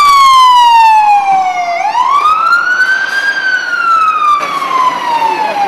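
Fire engine siren wailing loud. Its pitch falls slowly, sweeps back up about two seconds in, then falls slowly again.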